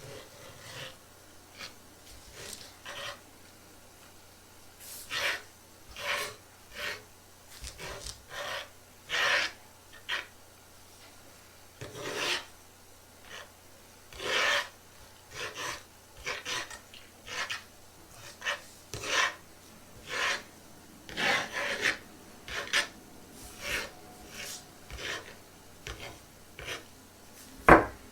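Paintbrush strokes rasping over a surface in short, irregular strokes about one a second, with one sharp click near the end.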